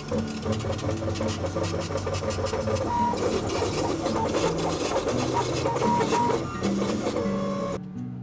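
Laser engraver's gantry stepper motors whirring in quick, shifting tones as the head rasters back and forth, engraving a logo into a wooden axe handle. The machine sound cuts off suddenly shortly before the end.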